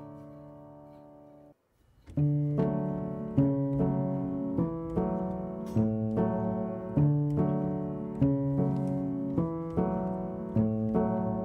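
Background piano music. It fades out at the start, stops briefly, and resumes about two seconds in with a steady run of notes.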